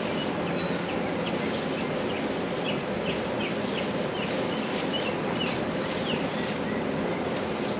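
Steady outdoor background noise with a string of short, high chirps, typical of small birds calling.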